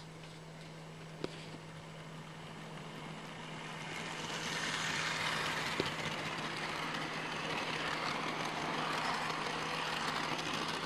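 Bachmann 00 gauge model train (3717 City of Truro hauling Mk1 coaches) running on its track: the motor and wheel-on-rail running noise grows louder over a few seconds as the train approaches, then holds steady as the coaches pass close by. A steady low hum runs underneath, and there are two sharp clicks, one early and one midway.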